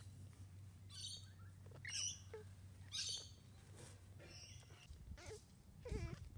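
Newborn kittens mewing: short, high-pitched squeaky cries about once a second, then longer, lower mews that bend in pitch near the end.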